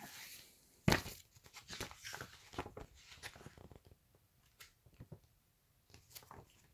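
Snack packaging being handled and opened by hand: scattered rustles, crinkles and small clicks, with one sharper knock about a second in.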